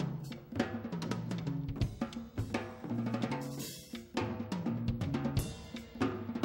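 Live percussion trio of drum kit, djembe and stick-played upright drums playing a fast, interlocking groove, with many quick strikes and pitched drum tones. A brief cymbal wash comes about three and a half seconds in.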